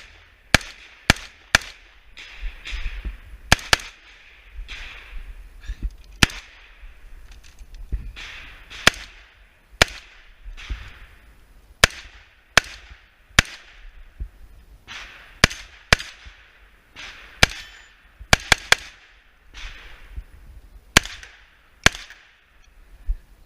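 AR-15 rifle in .223 firing about twenty shots in singles and quick pairs or triplets with pauses between, each crack followed by a brief echo.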